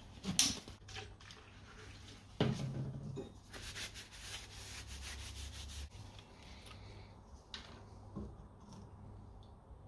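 A paper towel wet with acetone is rubbed over a steel axe head to degrease it, a steady scuffing wipe. Around it are a few light knocks of bottles and the axe head being handled on a steel bench, the loudest about two and a half seconds in.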